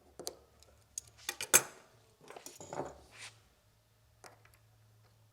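Small metal parts of a Taipan Slash air-rifle regulator clicking and clinking as it is taken apart by hand, with a quick cluster of clinks about one and a half seconds in and softer handling and scraping after.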